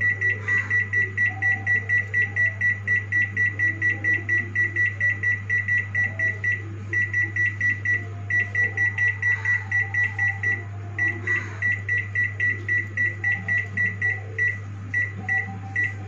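Samsung convection microwave's keypad beeping as the start/+30-second key is pressed over and over to run the timer up to 35 minutes: short high beeps about three a second, with a few brief pauses. A steady low hum runs underneath.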